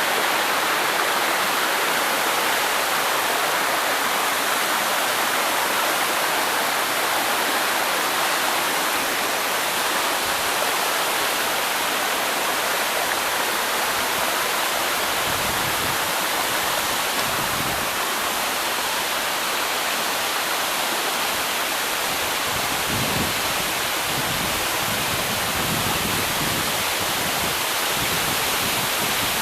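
Waterfall pouring steadily, an even rushing hiss of falling water. Uneven low rumbles come and go in the second half.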